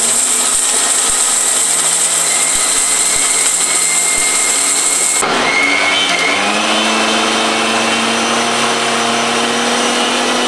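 Electric mixer grinder with a steel jar running loud and steady, grinding roasted whole garam masala spices to powder. About halfway through, the bright high hiss drops away and the motor settles into a steadier, slightly higher whine.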